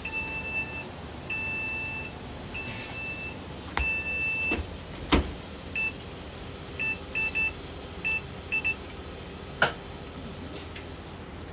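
Electronic beeper sounding four long beeps, then a quick scatter of short ones. Two sharp knocks come in between, the first, about halfway through, the loudest sound.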